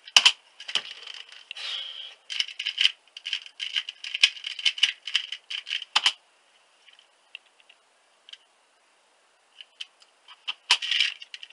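Plastic 2x2 speed cube being turned by hand, its layers clicking and rattling in quick clusters of turns. The turning stops for a few seconds with only a few single ticks, then a short, very fast flurry of turns starts about a second before the end.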